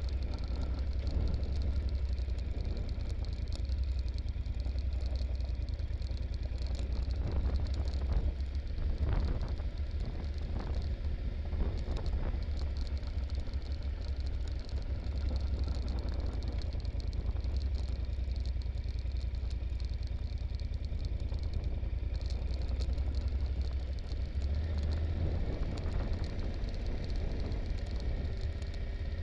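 Yamaha Super Ténéré motorcycle's parallel-twin engine running steadily, heard from a camera on the bike, with clatter and knocks as the bike jolts over a very rough rocky track. The knocks bunch together about a third of the way in.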